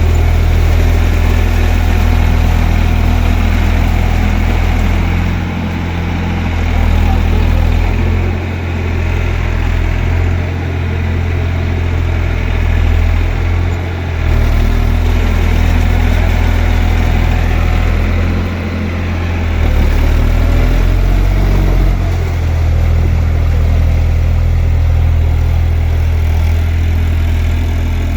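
Eicher tractor's diesel engine running steadily under load while ploughing in mud, its note sagging and picking up again several times.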